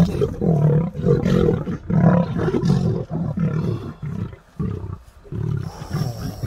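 Two male lions growling in a fight over a carcass, a rapid train of short, deep growls about two a second, with a brief lull about two-thirds of the way through before they start again.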